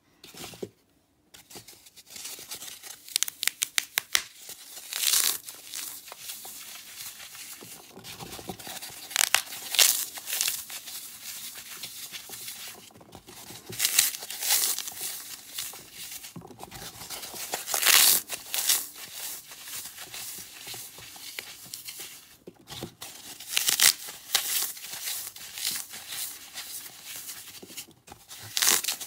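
Hands crushing and crumbling blocks of oven-baked floral foam: dry, crisp crunching and crackling, with a quick run of sharp snaps about three seconds in and louder crunches every few seconds.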